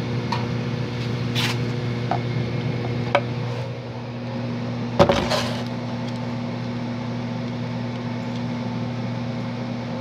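Old Janitrol gas furnace running through its start-up before the burners light: a steady motor hum, with a sharp click about three seconds in and a louder click about five seconds in.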